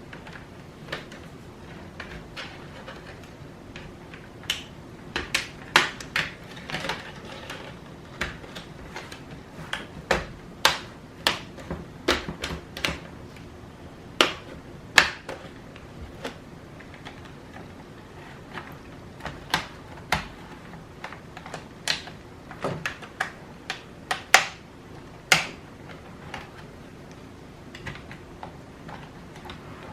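Irregular clicks, taps and small knocks of an Acer Aspire E1-570 laptop's plastic casing and parts being handled and pried apart during disassembly, over a faint steady hum.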